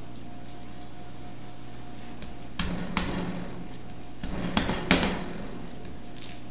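Hands patting and pressing a ball of raw ground beef flat on a plastic cutting board: two short groups of soft thumps and sharp knocks, about three seconds in and again near five seconds.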